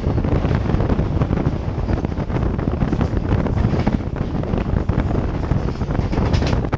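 Wind buffeting the microphone of a camera mounted on the outside of a fast-moving EMU local train, over the rumble of wheels on track as a rake of covered freight wagons passes close alongside. A few sharper clicks come near the end.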